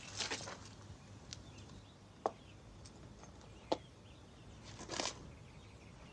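Quiet film soundtrack with short bursts of rustling and two brief sharp clicks about a second and a half apart.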